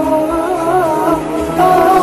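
Closing theme music with a gliding melody, growing louder about one and a half seconds in.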